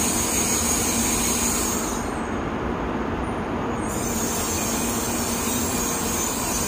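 N700-series Shinkansen train rolling slowly past and braking to a stop, a steady rumble of wheels on rail with a low hum running under it.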